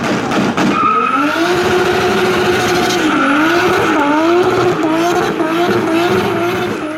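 V8 muscle car engine revving hard at high rpm. Its pitch climbs about a second in, then dips and climbs again several times.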